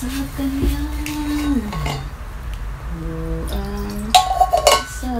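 A woman humming a slow tune in long held notes that glide between pitches, with a few light clinks of dishes about four seconds in.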